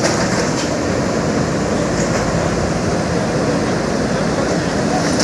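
Heavy diesel demolition machine running steadily under load, a continuous loud engine noise at a steady pitch.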